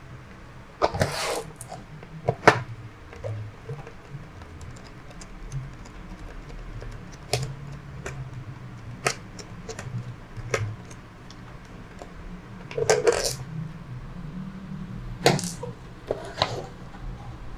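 Scattered clicks, taps and short scrapes of a plastic laptop case being taken apart by hand, with small parts handled, over a low hum.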